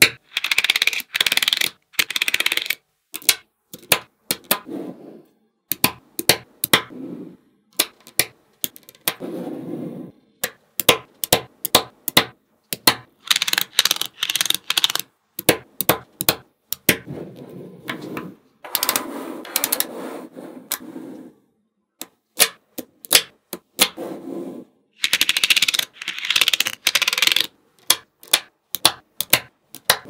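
Small magnetic balls clicking sharply as they snap together, in an irregular run of clicks with stretches of denser rattling clatter lasting a second or two as the balls are shuffled and pulled apart.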